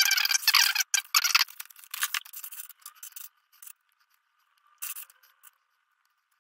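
Hands rummaging through a pile of loose plastic Lego pieces: rattling and rustling for the first three seconds or so, then only a few small clicks and taps as pieces are handled.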